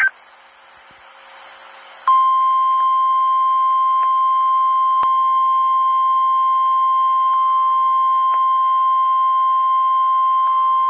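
NOAA Weather Radio warning alarm tone: one steady high tone held for about nine seconds, starting about two seconds in after faint radio hiss. It is the signal that an alert message follows, here a severe thunderstorm watch.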